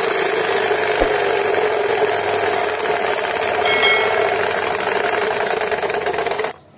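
Homemade plastic-bottle fake silencer on a bicycle's spinning rear wheel, being struck by the spokes to give a steady, engine-like rattling buzz meant to imitate a motorcycle. It cuts off suddenly near the end.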